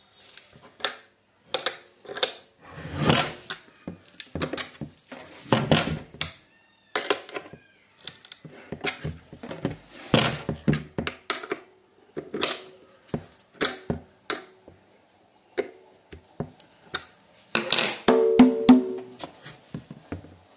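Bolt-tuned dholak struck with single, irregular taps and slaps on its heads while it is being tuned, checking the pitch between turns of the tension bolts. About 18 seconds in comes a quick run of strokes with ringing notes.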